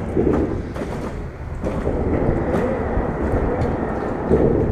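Steady low rumble of traffic on the concrete road bridge overhead, with a few faint clicks.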